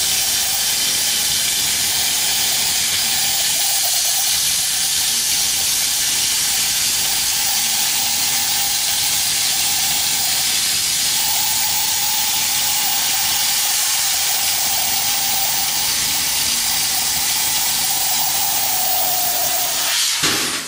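Plasma torch cutting a steel section: a steady, loud hiss with a faint whistling tone underneath. The hiss cuts off at the very end.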